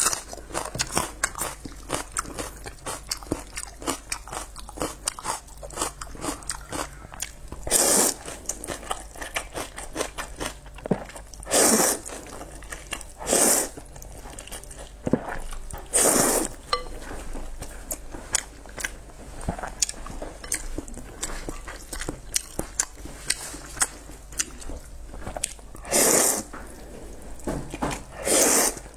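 A person eating pork noodles: steady chewing with many small wet mouth clicks, broken about six times by a loud slurp lasting under a second.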